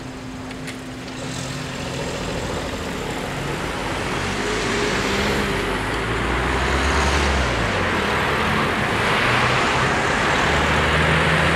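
Road traffic: cars driving past close by, their engine and tyre noise getting steadily louder as they come near.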